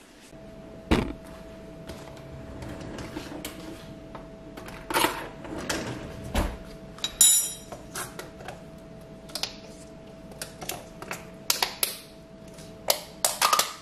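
Scattered light clicks and knocks of a plate and utensils being handled on a stone kitchen counter. There is one brief metallic clink about seven seconds in, and a cluster of quick taps near the end, over a faint steady hum.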